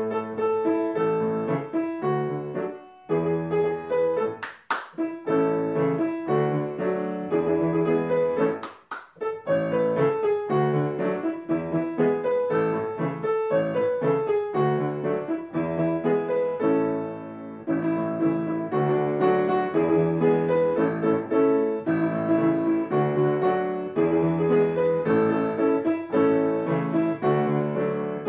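Piano playing a lively song melody over chords, with no voice. Two short, sharp claps cut in, about five and nine seconds in.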